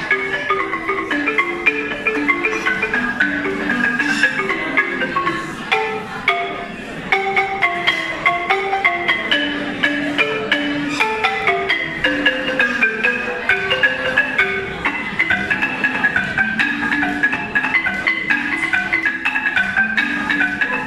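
Balafon, a West African wooden-keyed xylophone, played with mallets in quick, rhythmic runs of struck notes; the playing eases briefly about six seconds in, then comes back with sharp strikes.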